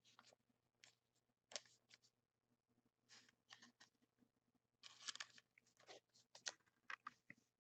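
Faint crinkling and rustling of trading cards being handled, in short scattered bursts, the busiest about five seconds in.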